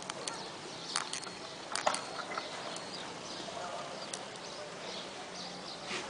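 Outdoor ambience with a few scattered sharp knocks, the loudest just under two seconds in, and faint high bird chirps.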